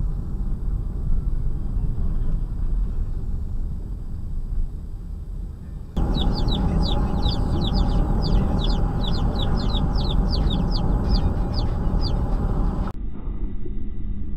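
Steady road and engine drone of a moving car, heard from inside the cabin. After about six seconds the sound changes abruptly, and a regular run of short, high chirps, about three a second, goes on for some seven seconds before stopping.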